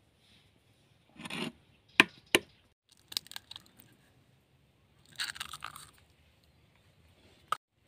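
A hen's egg being cracked on the rim of a bowl: two sharp taps about two seconds in, then the shell crackling as it is pulled apart. Rustling scrapes before and after, and one sharp click near the end.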